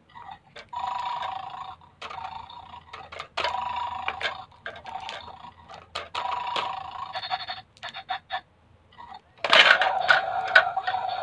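A battery-operated toy bulldog game's speaker plays electronic dog sounds in three short buzzy bursts, with small plastic clicks between them. About nine and a half seconds in, a louder burst comes as the toy's head lunges forward at the hand taking the lollipop from its bowl.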